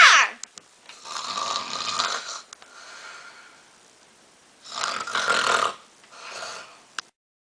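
A person snoring: two louder snores, each followed by a quieter breath out, with a short falling squeal right at the start and a click near the end.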